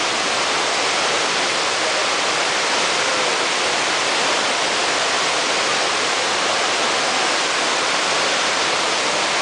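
Small waterfall pouring over rocks into a shallow stream: a steady, unbroken rush of falling water.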